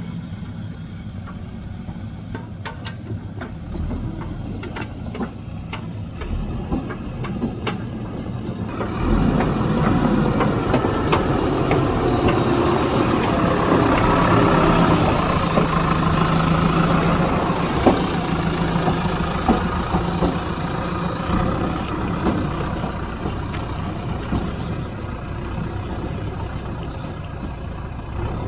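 JCB backhoe loader's diesel engine idling, with a few light clicks. About nine seconds in it gets much louder for around twelve seconds, then eases back to a lower steady run.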